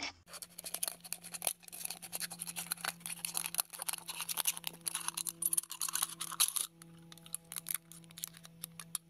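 A knife sawing and scraping through a thin aluminium drink can: a fast, dense run of scratchy rasps that thins to scattered scrapes about two-thirds of the way through, played back sped up. Faint held music tones sit underneath.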